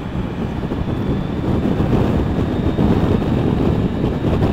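Wind rushing over the microphone of a moving Triumph Tiger 900 GT Pro motorcycle, with engine and road noise running steadily underneath.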